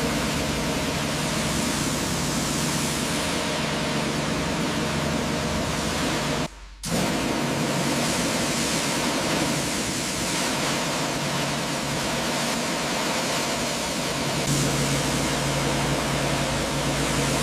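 Steady, loud rushing hiss with a faint low hum under it, broken by a brief gap about six and a half seconds in.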